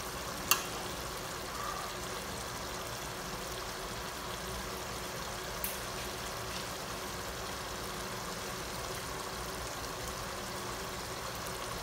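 Dark bistek sauce simmering in a large aluminium pot, a steady bubbling hiss. A single sharp knock comes about half a second in, with a faint click just before six seconds.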